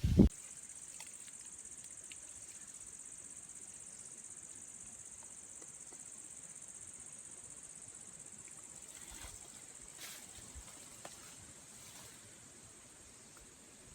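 A steady, high-pitched insect chorus with an even, unbroken trill, typical of crickets. It comes in abruptly after a brief loud low thump at the very start.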